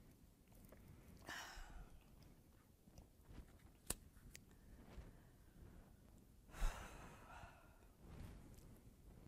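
Quiet room tone with two audible breaths into a close microphone, about a second and a half in and again about six and a half seconds in, and a single small click between them.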